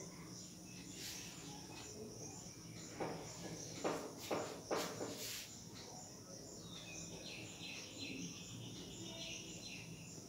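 Quiet room sound with a faint, high, evenly pulsing chirp, about three pulses a second, throughout. Several soft knocks and taps fall between about one and five and a half seconds in.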